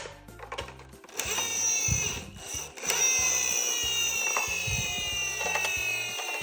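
A toy emergency vehicle's electronic siren: a high, many-toned sound that starts about a second in and slides slowly down in pitch, with a few sharp clicks, over background music.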